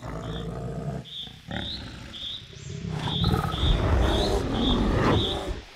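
Bears growling and roaring as they fight, loudest from about halfway through. A high chirp repeats about twice a second behind them.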